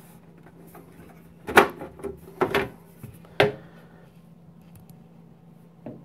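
Side panel of a Lenovo Ideacentre desktop tower being slid off the case: three loud sliding clunks about a second apart, in the first half, over a faint steady hum.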